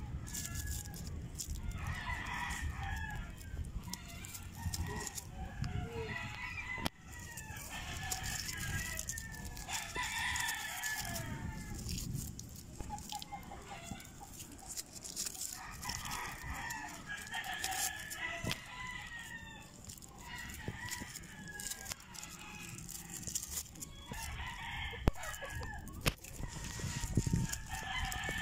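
Chickens: roosters crowing again and again, about ten crows of a second or two each, with hens clucking between them. A few sharp clicks sound up close, the loudest one near the end.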